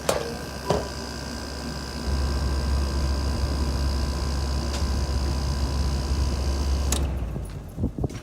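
Panasonic 5800 BTU window air conditioner running with a steady, deep compressor and fan hum that grows louder about two seconds in. About seven seconds in it is switched off: the sound cuts out sharply and the deep hum winds down over a second. A few handling knocks come at the start and near the end.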